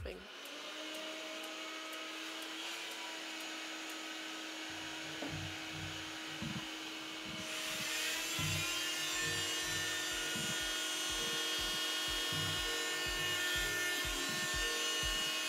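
Oscillating multi-tool running with a steady high whine, turning harsher and louder about halfway through as the blade bites into hard plaster to cut an outlet-box hole. Irregular low thumps start a few seconds in.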